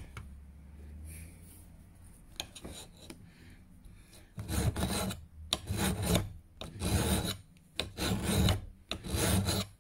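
Hand file rasping across the steel bevel of a Hultafors HY20 felling axe head: about six long strokes, a little under a second apart, starting about halfway through, as the bevel is reprofiled back to about 20 degrees.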